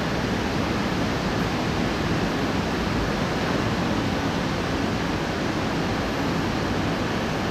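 Steady, even rushing background noise with no distinct events, no rise and no fall.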